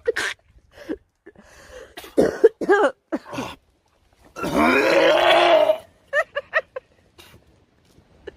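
A man gagging and retching in short coughing heaves, with one long drawn-out retch about halfway through, then a quick run of short heaves. He is reacting to the smell and taste of surströmming, fermented Baltic herring.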